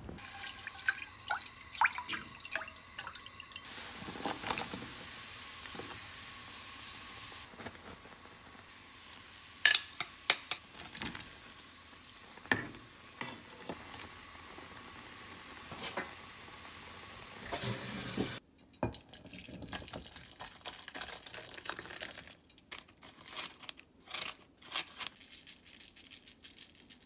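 Kitchen cooking sounds in a run of short clips: water sounds and a pot of soup bubbling on a gas hob, with sharp knocks of utensils on cookware about ten seconds in and a series of small taps and clicks near the end.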